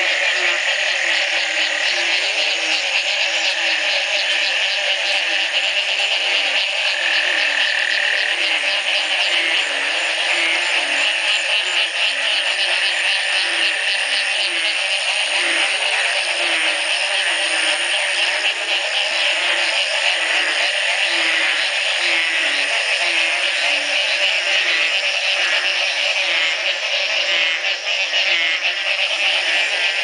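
Dense, loud chorus of many frogs calling on rain-flooded ground, the breeding chorus set off by the first rain after a long drought. Short, low calls, many rising in pitch, repeat over and over beneath a thick, unbroken high-pitched din.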